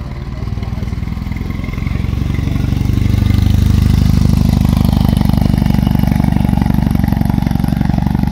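Car engine running loud and close, its exhaust pulses building in level over the first few seconds and then holding steady.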